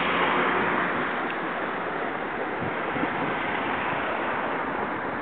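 Airliner engines roaring on take-off, a steady rushing noise loudest at the start and slowly fading as the aircraft draws away.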